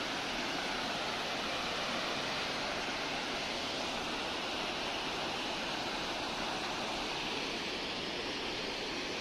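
Steady rush of water pouring down a concrete dam spillway, an even, unbroken noise of falling white water.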